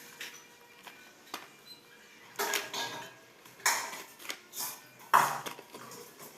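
A parcel being opened by hand: about four short bursts of rustling, crinkling packaging in the second half, with a few faint clicks before them.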